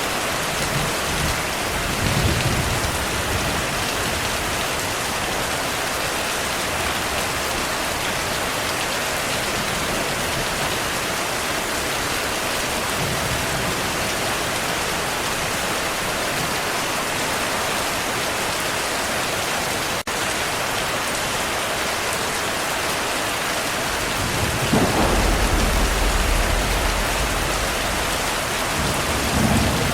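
Steady heavy rain hissing, with rolls of thunder: a short low rumble about two seconds in, a longer, louder rumble about twenty-five seconds in, and another near the end.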